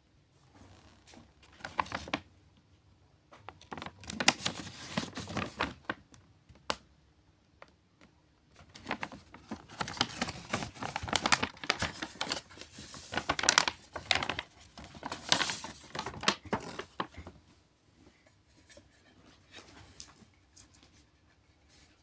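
Paper shopping bag rustling and crinkling in irregular bursts as hands open it and dig inside, quieting near the end to light handling of a cardboard box.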